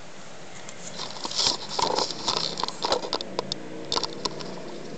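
Irregular rustling, scraping and clicking from close handling, starting about a second in and stopping shortly before the end, over a steady low hum.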